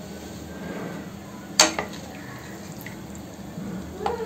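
Water dripping into a clay pot of rasam: a few sharp plops, the loudest about a second and a half in and two more near the end, over a steady low hum.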